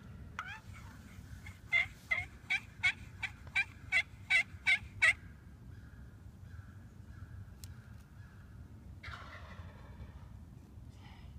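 A series of about a dozen turkey yelps, roughly two or three a second, growing louder over about five seconds. A rougher, shorter turkey call follows about nine seconds in.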